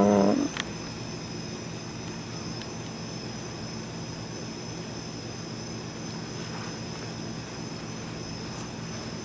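A steady low mechanical drone over a steady high chirring of night insects. A short voiced sound comes at the very start.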